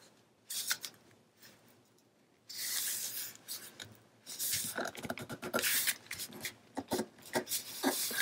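Patterned paper and cardstock rustling and scraping under the hands as a paper mat is slid into place on a cardstock flap and pressed down. A soft sliding hiss comes about two and a half seconds in, then a run of short rustles and scrapes.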